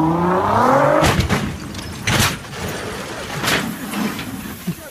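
A car engine revving hard, its pitch climbing through the first second, followed by three short, loud bursts of noise about a second apart.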